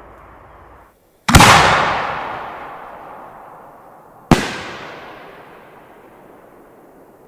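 Homemade aerial firework shell: a loud boom about a second in, most likely the lift charge firing it from the mortar, then a sharp bang about three seconds later as the shell bursts. Each report is followed by a long echoing fade.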